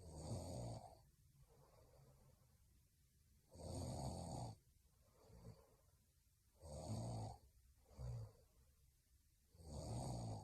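A young woman snoring in her sleep: four snores about three seconds apart, with shorter, softer breaths between some of them.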